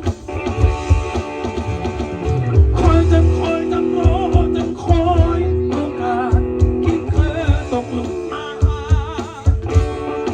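Instrumental passage of a Thai folk-rock song: a guitar lead line with bends and vibrato over a band backing with a steady drum beat.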